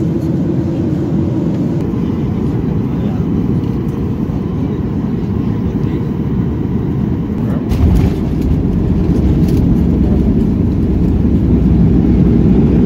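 Steady low rumble of a moving vehicle, growing louder about eight seconds in.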